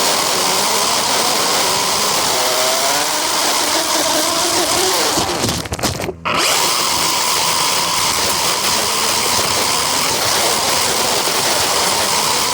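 Radio-controlled car running, heard from a camera mounted on it: a steady, loud rush of motor, drivetrain and wheels, with the motor pitch rising and falling a couple of seconds in. About halfway through, the sound cuts out briefly for under a second, then carries on.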